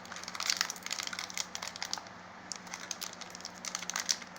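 Foil wrapper of a Pokémon trading card booster pack crinkling and crackling as it is handled and worked open, with a brief lull about halfway through.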